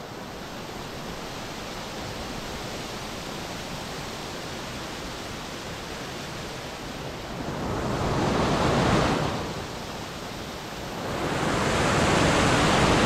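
Mountain stream rushing over boulders in white-water cascades, a steady noise of water that grows louder twice, once about two-thirds of the way in and again near the end.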